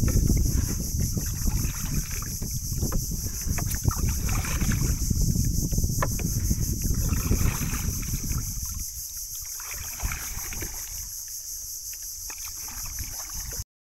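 Wind buffeting the microphone, a heavy low rumble that eases off about two-thirds of the way through, over a steady high-pitched drone of insects from the mangroves.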